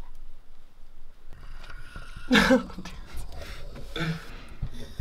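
A man's short wordless vocal sounds, loudest about two and a half seconds in, over a faint low rumble.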